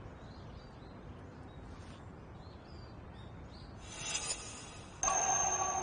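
Quiet outdoor ambience with faint bird chirps. A brief rustle comes about four seconds in, then background music of held, steady tones starts suddenly about five seconds in.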